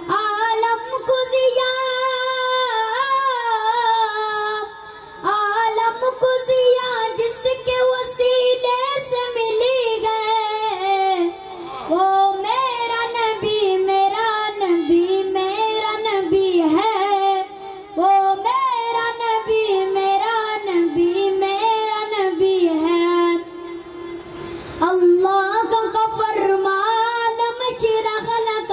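A boy's voice singing an Urdu naat solo into a microphone, in long, ornamented phrases that bend and slide in pitch. There are short breaks for breath every few seconds.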